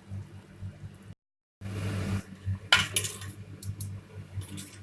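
Metal kitchen utensils and cookware being handled: a few sharp clinks and knocks over a low hum. The sound drops out completely for about half a second near the start.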